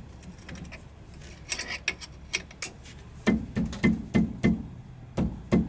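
A combination wrench on a brake-line banjo bolt struck with the palm of the hand: a run of short, small whacks about three a second, starting about halfway through, to snug the bolt into the aluminum caliper. Before them come a few light metallic clicks of the wrench on the bolt.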